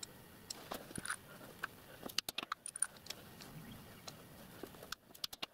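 Faint light clinks of small steel letter punches being handled and picked out of their set, a few scattered clicks with a cluster a couple of seconds in.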